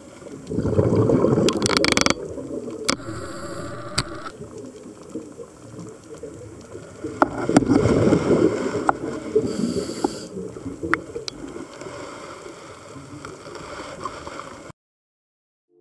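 Underwater sound of a scuba diver breathing through a regulator: a rush of exhaled bubbles about a second in and another about seven seconds in, with scattered sharp clicks between. It cuts off suddenly near the end.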